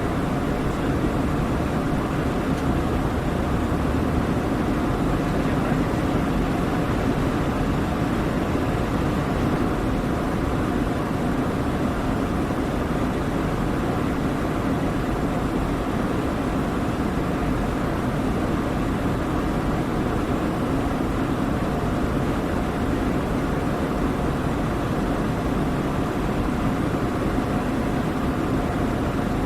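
Steady roar of a Douglas DC-8's jet engines and airflow heard inside the passenger cabin in flight, unchanging, with a faint steady whine in it.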